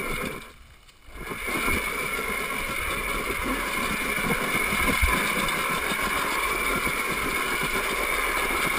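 Electric motor and drivetrain of a 2012 Zero MX dirt bike whining steadily under throttle as it climbs, with knocks and thuds of the bike bumping over rocks. The whine drops out for a moment just under a second in, then picks up again and holds. A heavier thump comes about five seconds in.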